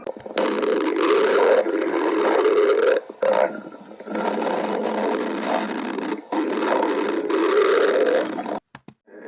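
Stomach growling: long, loud gurgling rumbles in several stretches, with short breaks about three, four and six seconds in, stopping shortly before the end.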